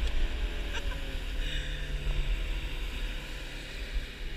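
Outboard motor running steadily as the boat moves across the water, with wind buffeting the microphone and water rushing along the hull.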